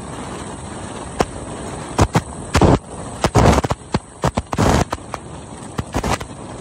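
Wind buffeting a phone's microphone on a motorcycle at highway speed: a steady rush, with a run of loud crackling gusts between about two and six seconds in.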